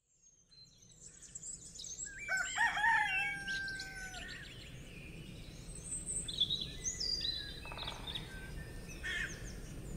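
A rooster crows once, a long call about two seconds in, over birds chirping, fading in from silence.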